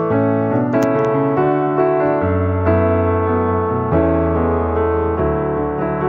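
Background music on a piano-like keyboard: slow, held chords over a low bass note that changes every second or two.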